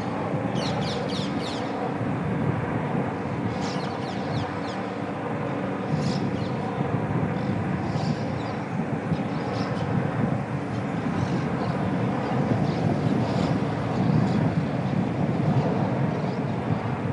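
Outdoor ambience: a steady low rumble of distant background noise, with short high chirps of birds coming every few seconds, in a quick cluster about half a second to two seconds in.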